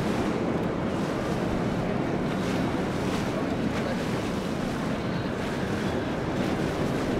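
Motor yacht cruising past: an even, unbroken rush of water from its wake, mixed with wind noise on the microphone.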